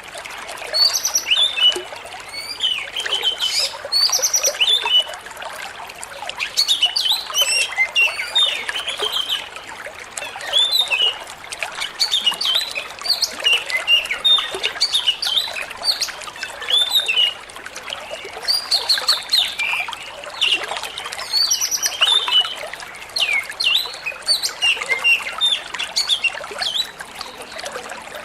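Oriental magpie-robin singing quick, varied phrases in bursts every second or two over a steady trickle of running water.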